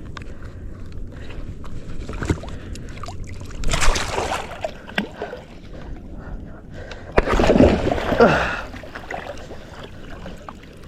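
Water splashing around a kayak as a hooked fish is brought alongside, with two louder splashes about four and seven seconds in.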